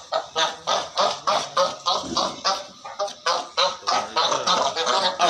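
Cape fur seals barking in a rapid string of short, harsh calls, about four a second, several animals calling over each other as they squabble.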